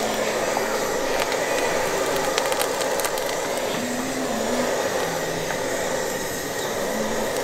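Gas torch flame searing chicken feet over direct fire: a steady rushing hiss with scattered crackles of sizzling.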